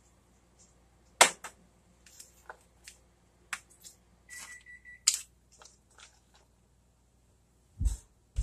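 A metal spoon clinking and scraping against a glass mixing bowl as flour, butter and egg are stirred, in separate sharp clinks with the loudest about a second in. Two low thumps near the end.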